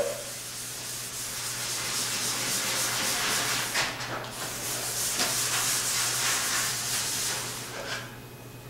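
Red abrasive hand pad scrubbing Rubio Monocoat two-part oil finish into a walnut slab: a steady scratchy rubbing of pad on oiled wood that eases off near the end, over a low steady hum.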